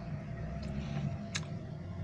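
Eating rice and fish curry by hand from steel dishes: soft handling sounds with one sharp click a little over a second in, over a steady low hum.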